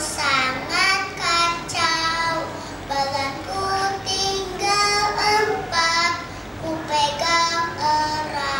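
A young boy singing a song on his own, holding some notes for about a second.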